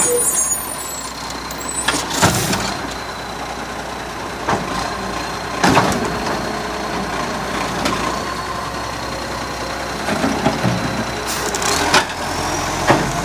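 Garbage truck's engine running steadily, with a small exhaust leak. A few brief, louder sounds cut through the engine noise about two, six and twelve seconds in.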